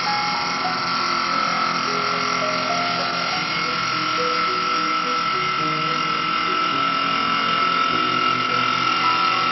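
CNC wood lathe turning a wooden spindle with its twin blades: a steady high whine from the machine over a constant hiss of cutting.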